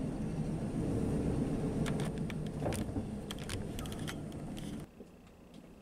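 Truck engine running, heard from inside the cab, with a few sharp clicks and rattles partway through; the engine sound cuts off abruptly about five seconds in.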